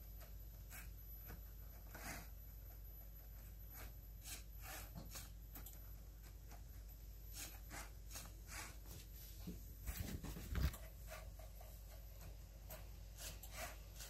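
LEGO Spike Prime pen plotter drawing: quiet, irregular short scratching of the marker on paper and clicking of the mechanism as the motors move the pen carriage. There is one louder low thump about ten seconds in.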